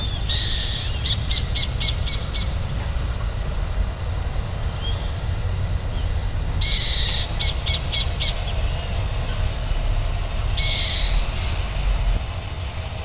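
An owl giving three harsh screeching calls about four seconds apart. The first two are each followed by a quick run of short, sharp clicking notes. A steady low rumble lies underneath.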